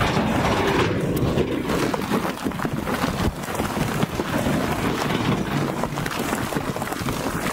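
Dump truck engines running under load while a tipped bed of stone slides and tumbles out, a dense rumbling clatter of rocks with many small knocks.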